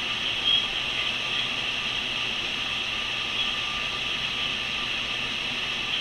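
Steady, even hiss with a faint constant tone running under it, and one brief louder blip about half a second in.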